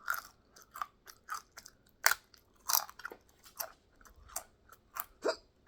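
A person chewing crunchy food close to the microphone: a run of crisp, irregular crunches, a few a second, with a sharper, louder crunch about two seconds in.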